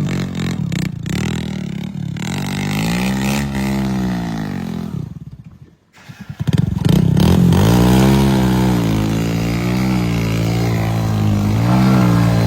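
A heavy vehicle's engine running under load, its pitch rising and falling as it is revved. It cuts out about five and a half seconds in, comes back about a second later and runs on steadily.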